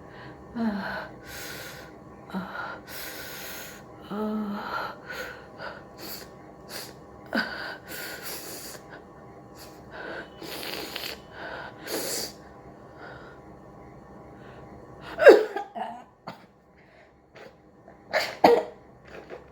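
A person sniffing and breathing in short, noisy puffs while tickling the inside of the nose with a matchstick, then sneezing loudly about 15 seconds in, with a second loud sneeze-like burst about three seconds later.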